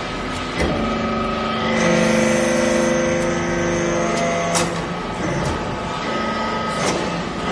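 TCM hydraulic metal-chip briquetting press running, its hydraulic power unit humming steadily as the ram presses down into the hopper of chips; the hum's tones grow stronger from about two seconds in to about four seconds. A few sharp clicks or knocks sound, about half a second in, past the middle and near the end.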